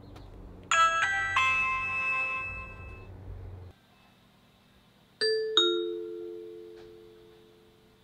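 A Ring Video Doorbell Pro's button is pressed and its own speaker plays a short three-note chime that rings out over a couple of seconds. About five seconds in, an Echo Show 5 plays its default two-note ding-dong doorbell chime, the two notes ringing and fading slowly. The ding-dong is the Alexa Ring skill announcing the press.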